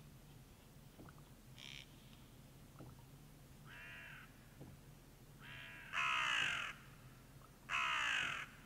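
Ravens calling: a few quieter harsh croaks, then two loud croaks about two seconds apart near the end.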